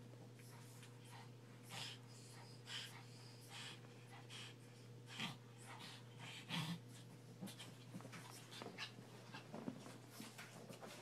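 Two Pekingese dogs playing: faint, irregular short sniffs, snuffles and scuffling, over a steady low hum.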